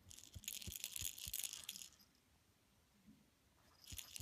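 Chihuahua puppy chewing and tugging at a plush toy, the toy crinkling in two bursts: one about two seconds long, the other starting near the end.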